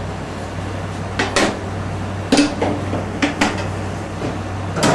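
A metal tart tin and pan-gripper clinking and knocking against the oven rack and tray as the tart is set into the oven: several sharp knocks, some in quick pairs, the loudest near the end, over a steady low hum.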